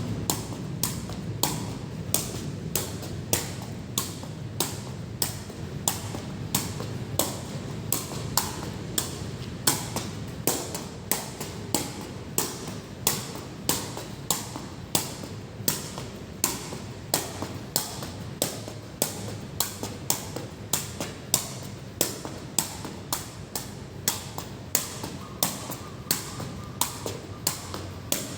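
Rainwater dripping steadily onto a hard surface: sharp, evenly spaced taps about twice a second over a low steady background of rain.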